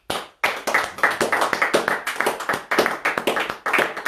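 Hands clapping fast and steadily, several claps a second, starting about half a second in.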